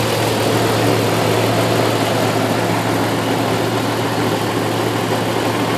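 1997 Jeep Grand Cherokee engine idling steadily with no stumble or cut-out, running after a repair to the engine computer's (PCM's) inner connector that had been making it stall at random.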